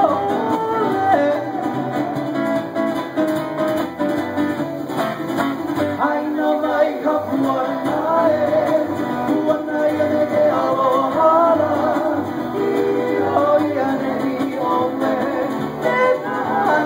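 Live Hawaiian string trio of guitar, ukulele and upright bass playing a song, with singing over the strummed strings.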